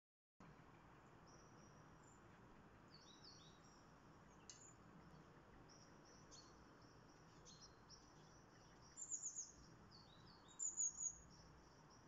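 Small songbirds calling: many short, high chirps and thin whistles, with two louder runs of three or four quick high notes about nine seconds in and again a second or so later.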